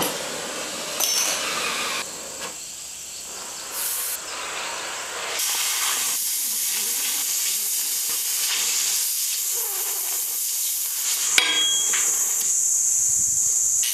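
Gas cutting torch hissing steadily as its flame cuts through steel plate, with a sharp pop at the very start; the hiss grows louder about five seconds in.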